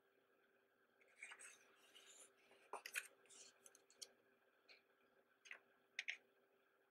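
Faint rustle and crackle of a glossy program book's page being turned and smoothed flat by hand, followed by a few brief paper ticks.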